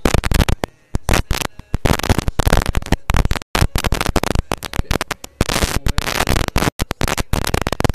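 Loud, harsh crackling and distortion, chopped by brief dropouts: a faulty audio feed in which any voice or music underneath is unintelligible.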